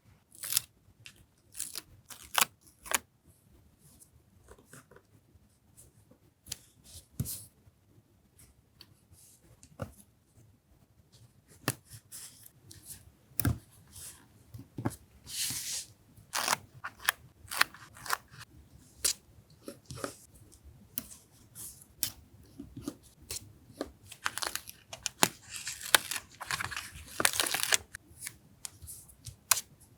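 Paper being handled for collage journaling: scattered taps and clicks, with rustling and tearing paper, longest about 15 seconds in and again from about 24 to 28 seconds in.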